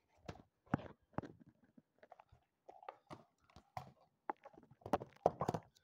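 Irregular crackling, rustling and tearing of paper and cardboard as a gift is unwrapped by hand, with sharp crinkles scattered throughout and a denser cluster near the end.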